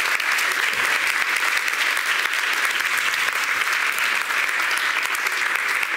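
A large audience applauding, a dense, even clapping.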